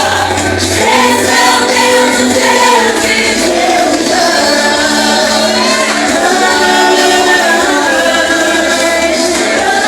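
A live vocal group and band performing Pentecostal gospel worship music, several voices singing together over a sustained bass.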